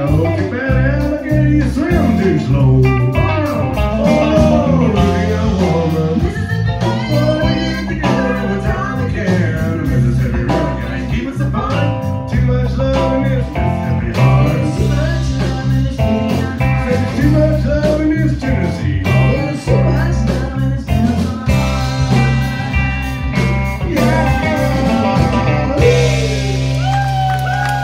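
Live country band playing, with a man and a woman singing a duet over acoustic guitar, electric guitar and drums. Near the end the song closes on a held note that falls away.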